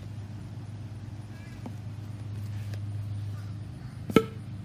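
Air-powered stomp rocket launching from its pedal launcher: one sharp pop about four seconds in, after a couple of faint clicks as the rocket is fitted onto the launch tube, over a steady low hum.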